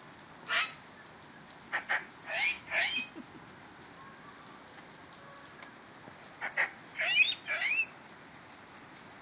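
Sulphur-crested cockatoo giving short calls: one call, then two quick runs of several calls each, the second run near the end. A steady hiss of rain runs underneath.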